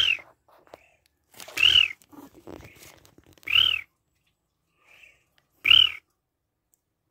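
Ducks giving four short whistled calls about two seconds apart, each rising then falling in pitch.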